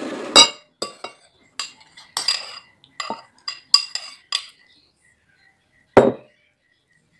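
A metal spoon and fork clinking and scraping against a ceramic bowl of noodles, with a quick run of sharp clinks, then one louder knock about six seconds in.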